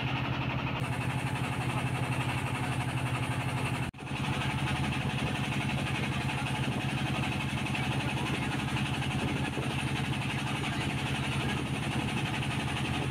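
Motorboat engine running steadily under way, a fast even chugging. The sound breaks off for an instant about four seconds in and picks up again at once.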